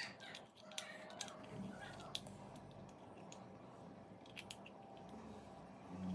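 Faint, scattered clicks and light taps of kitchenware being handled, mostly in the first couple of seconds, with a few more later.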